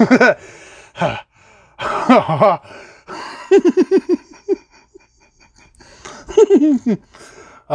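A man laughing in several bursts, with a quick run of 'ha-ha-ha' pulses a little past the middle and another laugh near the end.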